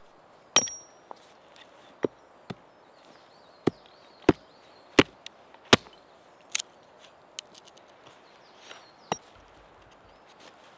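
A small hatchet chopping a wooden stick held on a tree-stump chopping block: a series of sharp, irregularly spaced wooden chops, about a dozen in all, with the first the loudest.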